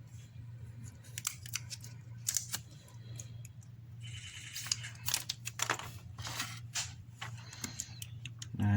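Scattered small clicks, taps and crinkles of a new iPhone 6s battery and its adhesive tape being handled, with a brief scraping rustle about four seconds in, over a steady low electrical hum.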